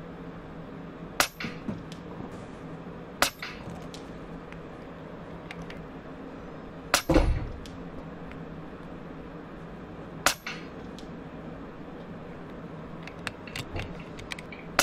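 Rifle shots on a shooting range: four sharp reports a few seconds apart, the one about seven seconds in the loudest with a deep boom, then a few lighter clicks near the end.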